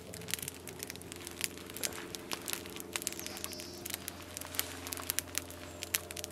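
Wood campfire crackling with frequent sharp pops, along with the soft rip of feathers being plucked from a grouse.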